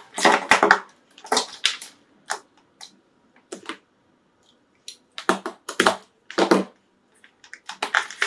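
Charging cables being handled and plugged into devices: irregular rustling and clicking of plastic cables and connectors, with a quieter pause in the middle.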